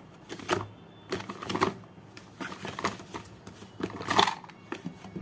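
Cardboard headphone box being opened by hand: a run of irregular scrapes and rustles as the card packaging is worked and the headphones are slid out, the loudest about four seconds in.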